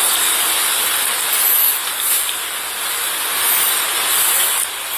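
A steady rushing hiss with no voices in it, swelling and easing a little a few times.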